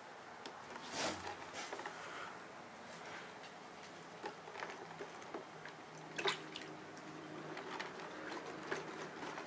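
Faint handling of small wet carburetor parts by hand: light clicks and taps of metal pieces, with a brief louder noise about a second in and a sharper click about six seconds in.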